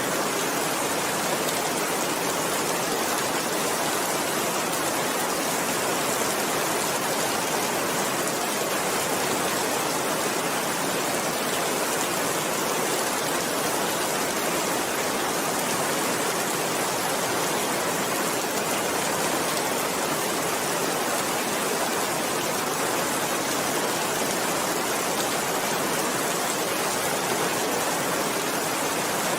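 Steady rain falling as an even, unbroken hiss.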